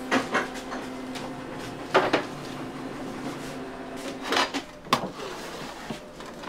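Bakery kitchen work sounds: a handful of sharp knocks and clanks of pans and equipment being handled, over a steady machine hum that stops about four and a half seconds in.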